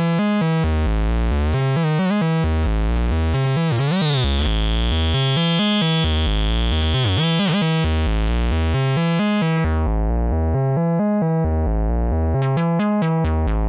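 Eurorack analog modular synthesizer, Tom Yum analog VCOs, playing a repeating sequence of notes stepped by an unquantized analog sequencer, so the pitches sit off any scale. A high whistling tone glides down and holds for several seconds, then about ten seconds in the bright top of the sound falls away as a knob is turned. A quick run of clicks sounds near the end.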